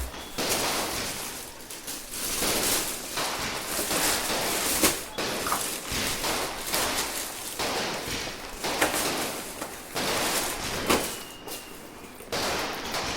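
Firecracker packaging being handled: repeated bursts of crinkling and rustling, each about a second long, with a few sharp knocks as packets and boxes are moved.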